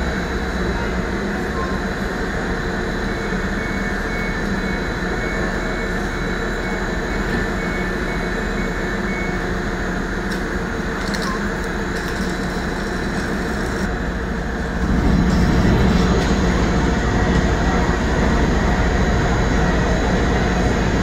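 Diesel train standing at the platform with its engine running steadily; about fifteen seconds in the engine note steps up and gets louder. A short series of faint beeps sounds a few seconds in.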